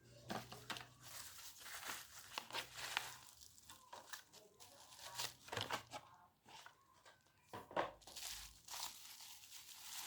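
Packaging being handled and torn open: irregular crinkling and crackling with sharp clicks.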